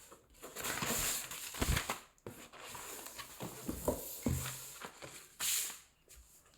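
Product packaging being handled and opened by hand: irregular rustling with a few soft knocks, and a short loud rustle about five and a half seconds in.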